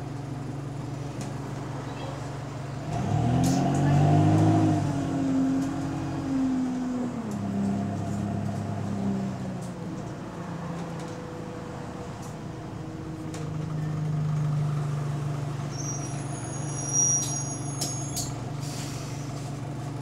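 Bus diesel engine with an exhaust leak, heard from inside the bus: a steady low hum that swells as the engine revs up about three seconds in, its pitch rising and then stepping down over a few seconds, and swells again later. A brief high squeak and clicks come near the end.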